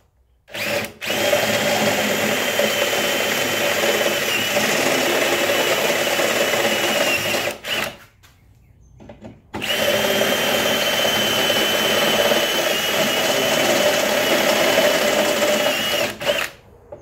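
Cordless drill with a step bit opening up pilot holes in a sheet-metal cab mount panel, running steadily with a high motor whine. It runs in two long stretches of about seven seconds each, with a pause of about two seconds between them.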